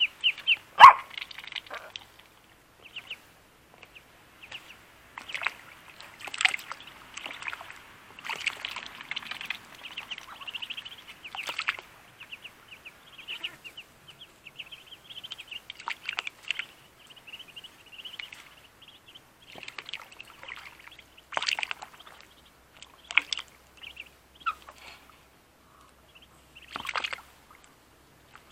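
Two-week-old Muscovy ducklings peeping over and over while a duckling paddles and splashes in a shallow tub of water. A sharp knock about a second in is the loudest sound.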